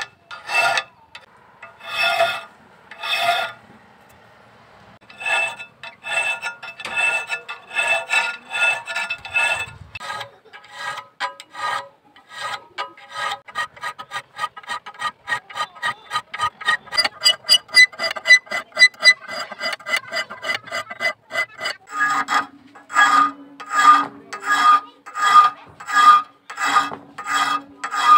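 Steel hand file rasping across a steel knife blank clamped in a vise, in repeated push strokes. The strokes start slow, about one a second with a brief pause, turn into quick short strokes in the middle, then slow to longer strokes near the end, where a steady low tone sounds underneath.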